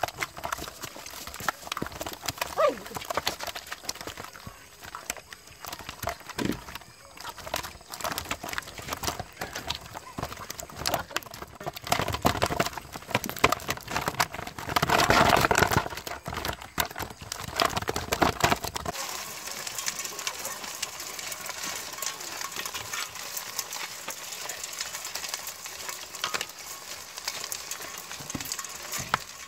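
Live hito catfish thrashing in a plastic basin after being salted, many wet slaps and knocks against the basin, loudest and densest a little past halfway. About two-thirds in, the knocking stops and gives way to a quieter scratchy hiss.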